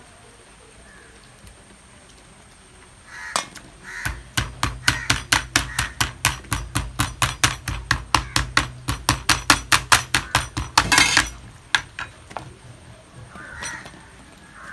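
A rapid run of sharp, even taps, about five a second for roughly seven seconds, over a low hum, with crows cawing around it.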